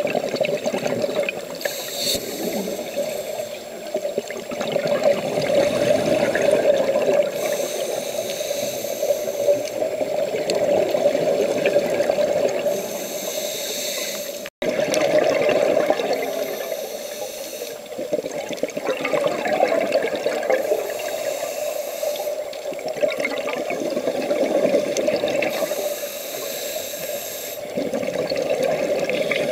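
Muffled underwater sound through a camera housing: scuba regulator exhaust bubbles gurgling in repeated bursts every few seconds. There is a brief dropout about halfway through, where two clips are joined.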